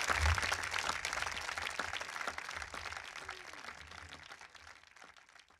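Audience applause, many hands clapping, fading out steadily until it is almost gone.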